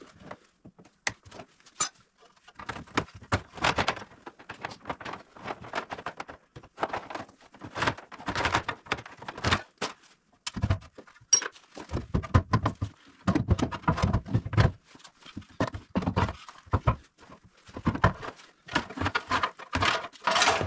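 Irregular clattering, clinks and knocks of hand tools and metal parts as an old Warn ProVantage winch is unbolted and pulled out from the front of a UTV, with heavier thuds in the middle.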